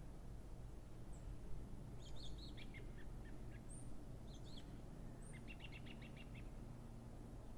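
Small birds chirping, with scattered short calls and a quick trill of about eight notes a second a little past the middle, over a steady low background rumble.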